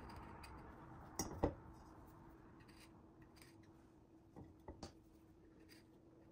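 A small kitchen knife scoring the skins of tomatoes with light cutting clicks, and the tomatoes knocking softly as they are set down in a ceramic bowl: the loudest pair of knocks about a second in, and three more a little past four seconds. A faint steady hum runs underneath.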